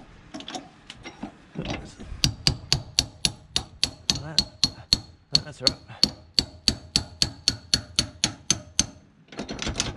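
A hand tool working on the steel leaf-spring hanger bolt: a few scattered knocks, then from about two seconds in an even run of sharp metallic clicks, nearly four a second, each with a short ring, stopping about a second before the end.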